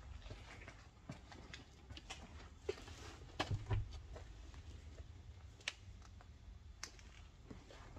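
Scattered light clicks and knocks at an irregular pace over a low rumble, with a couple of heavier low thumps about three and a half seconds in.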